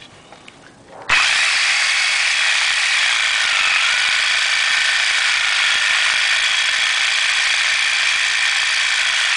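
Reciprocating saw with a Lenox carbide-grit blade cutting through 4-inch cast iron drain pipe. It starts abruptly about a second in and runs steadily as a loud, high-pitched rasp.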